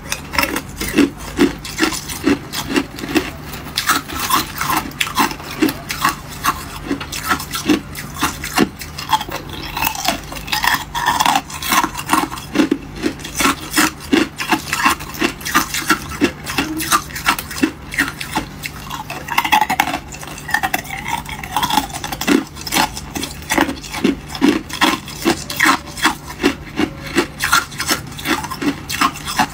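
Thin ice cubes being crunched between the teeth, a steady run of crisp crunches about three a second.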